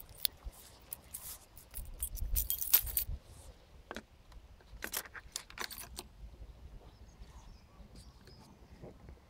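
Keys jingling and clicking as the ignition key of a KXD 701 49cc mini dirt bike is handled and turned in its switch. There are sharp clicks and jangles, busiest in the first three seconds and again around five to six seconds in.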